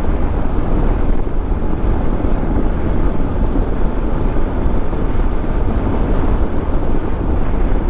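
Steady wind rush and rumble over the microphone of a KTM 390 Adventure motorcycle riding at road speed.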